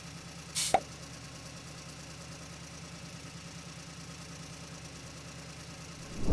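A vehicle engine idling with a steady low, even throb. A short sharp noise comes about two-thirds of a second in, and a louder low burst starts near the end.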